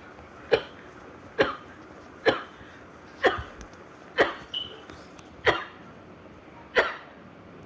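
A girl sneezing in a rapid fit: seven short, sharp sneezes, each about a second apart.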